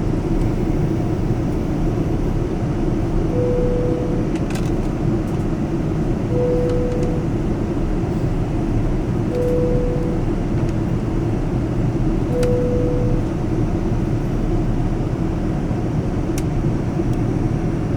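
Boeing 787 cabin chime: a single soft, steady tone sounding four times, about three seconds apart. It plays over the steady rumble of the airliner cabin's engine and air-conditioning noise, with a few faint clicks.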